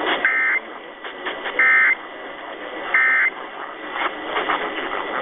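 Emergency Alert System end-of-message data bursts: three short, buzzy digital squawks about 1.3 s apart, closing the alert after the spoken test message. They come over a radio receiver, with steady static hiss between them and a muffled, narrow sound.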